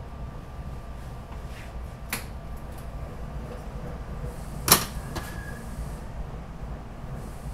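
Steady low rumble inside a SEPTA Regional Rail passenger car, with a light click about two seconds in and one sharp knock a little before five seconds.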